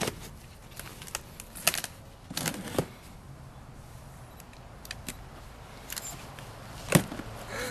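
Cardboard shipping box being opened by hand: scattered rustles, scrapes and clicks as the flaps and packing tape are pulled, with one sharper knock about seven seconds in.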